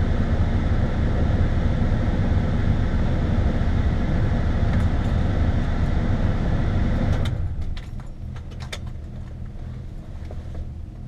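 A loud steady rumble of outside wind and noise comes in through the car's open door until the driver's door shuts with a sharp click about seven seconds in. The cabin then goes much quieter, with a quick run of small metallic clicks and jingles as the driver settles in.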